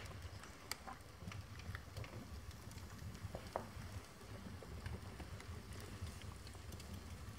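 Stamp album pages and stamps burning in a fireplace: the fire crackles with scattered sharp pops over a low steady rumble, one louder pop about three and a half seconds in.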